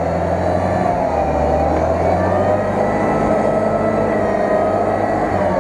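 UAZ-469 off-roader's engine running hard at steady revs as it pushes through deep mud, with a higher whine riding over the engine note.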